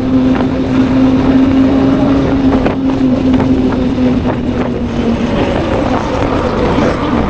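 Honda motorcycle engine running at a steady cruise, its note easing slightly lower about five seconds in, with wind rushing over the microphone.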